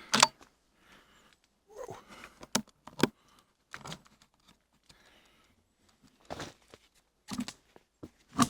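Irregular rustling with a few sharp clicks or knocks, and a short exclaimed 'whoa' about two seconds in.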